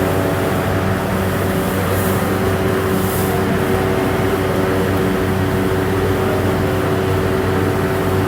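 Machinery running steadily, a loud low drone with several constant tones over it, plus two short hisses about two and three seconds in.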